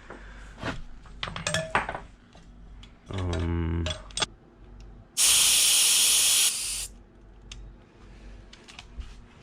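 Air hissing out of a motorcycle inner tube's valve stem in one loud burst of about a second and a half, about five seconds in, as the valve core is loosened with a valve stem remover tool to deflate the tire. Small metallic clicks from handling the tool come before it.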